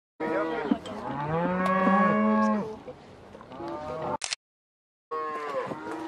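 Several cattle mooing, their calls overlapping and sliding up and down in pitch. The sound cuts out briefly at the start and again for a moment about four and a half seconds in.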